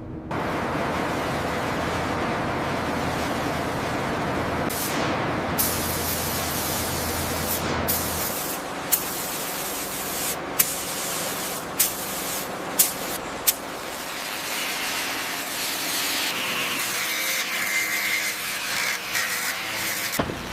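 A steady, loud spraying hiss that starts suddenly, with a few sharp clicks around the middle.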